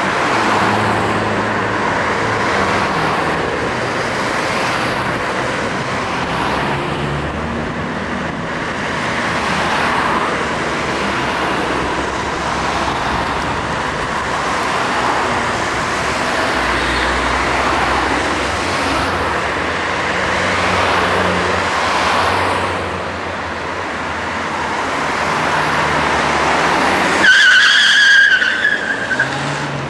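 Road traffic at a city junction: cars running and passing steadily. Near the end comes a loud, high squeal lasting about a second and a half.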